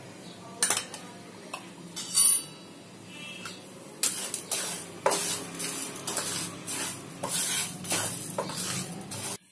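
Wooden spatula stirring dry spices and lentils as they dry-roast in a nonstick pan, with no oil. A few separate knocks at first, then steady rattling scrapes from about four seconds in that stop abruptly near the end.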